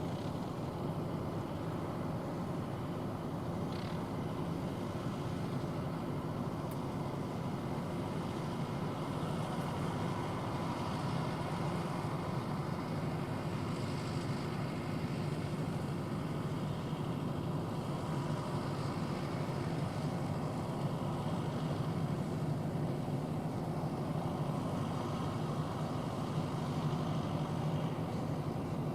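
Zetor Forterra 140 HSX tractor's diesel engine running steadily while working a Kverneland 6350 round baler.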